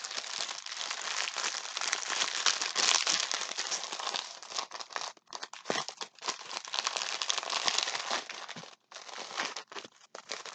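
Plastic packaging crinkling as it is handled: dense crackling for the first half, then separate rustles with short pauses.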